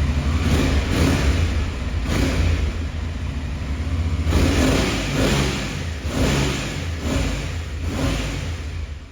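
Aprilia Tuareg 660 parallel-twin engine running through a Mistral X-Trail aftermarket exhaust, revving in repeated surges about once a second.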